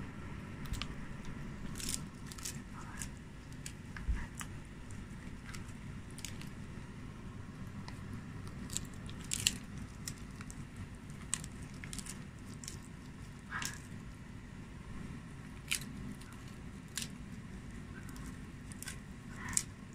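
A Siberian husky chewing a lamb ear with fur: irregular sharp crunches and clicks of teeth on the chew, spaced out at uneven intervals.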